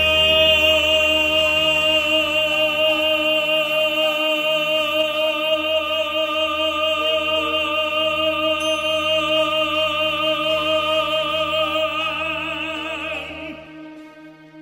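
A baritone voice holds one long closing note with vibrato over a sustained instrumental backing chord. Both fade out near the end.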